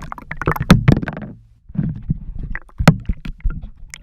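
Handling noise from a camera in a waterproof housing: irregular knocks and low rumbling as it is moved about in bath water, with a brief lull about a second and a half in.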